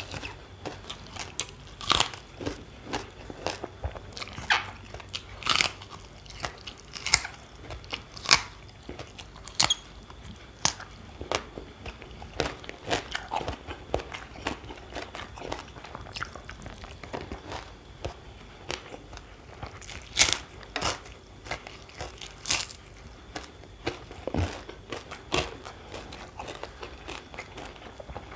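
A person biting and chewing crunchy food close to the microphone: sharp, irregular crunches every second or so amid quieter chewing.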